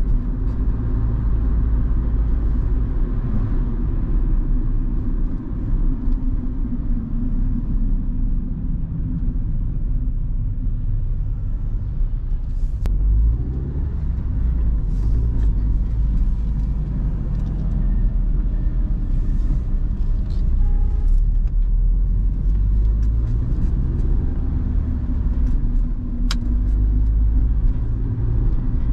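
1997 Honda Civic's 1.4-litre four-cylinder petrol engine and road rumble heard from inside the cabin while driving, the engine note rising as it accelerates about halfway through and again near the end. Two brief sharp clicks stand out over the rumble.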